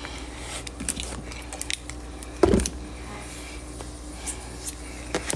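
Scattered small clicks and handling noises, with one louder short knock about two and a half seconds in, over a steady low hum.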